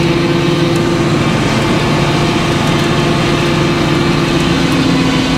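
Large circular sawmill blade cutting lengthwise through an oak log, with the mill's power unit running steadily under load.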